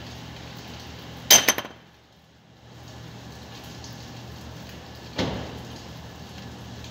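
Sharp metal-on-metal clanks: a quick cluster of three or four strikes about a second in, then a single clank with a short ring about five seconds in, over a steady low hum.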